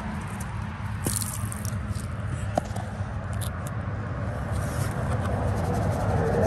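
Gravel and wet material scraping and rattling in a plastic gold pan, a few sharp scratches over a steady low rumble.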